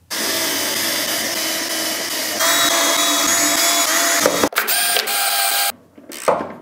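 Electric drill running while boring pilot holes. It runs steadily, speeds up a little over two seconds in, cuts out for a moment, then runs again and stops shortly before the end.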